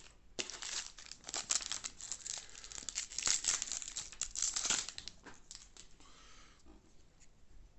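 Trading card pack wrapper being torn open and crinkled by hand, a dense crackling that runs for about five seconds and then fades to a few faint ticks.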